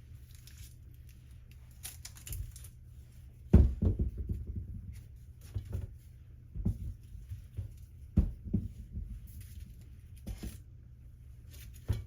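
Irregular taps, knocks and rustling of objects being handled, with the sharpest knocks about a third of the way in and again near the end.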